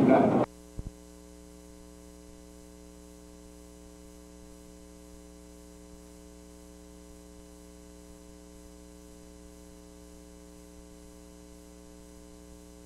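Steady electrical mains hum on a blank stretch of videotape, with no picture and no recorded sound. The recorded sound cuts off abruptly about half a second in, and there is a brief click just after.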